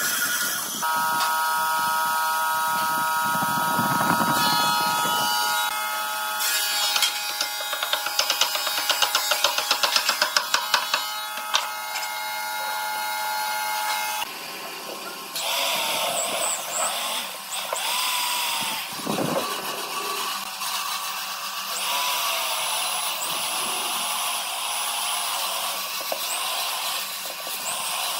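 Woodworking power tools running and cutting wood: a steady machine whine for about the first half with a rapid ticking chatter in its middle, then a rougher, more uneven cutting noise after the sound changes about halfway through.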